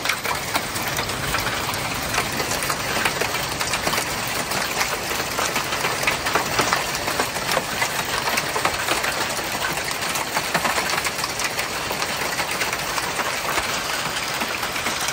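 Heavy downpour with hail: a dense, steady hiss of rain with many sharp ticks of hailstones striking the balcony and rooftops.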